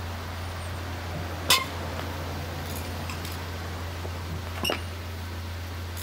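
Two sharp metallic clinks with a brief ring, about three seconds apart, the first the louder: a steel lug wrench knocking against the lug nuts of a car wheel as they are loosened. A steady low hum runs underneath.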